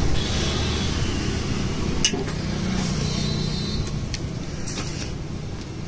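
Steady low rumble of road traffic, with a few brief sharp clicks.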